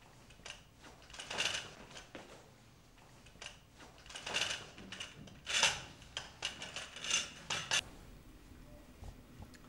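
Clicks and rustling from a camcorder tape cassette being handled and its tape pulled out in several pulls. The pulls come as bursts, with a quick run of clicks before it goes quiet near the end.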